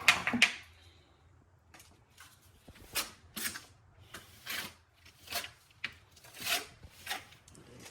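A series of short scraping strokes, about eight of them at an uneven pace in the second half, like a hand tool worked back and forth over a rough surface.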